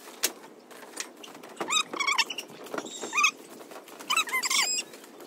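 A small pet animal making short, high, rising-and-falling calls in three quick clusters of a few calls each.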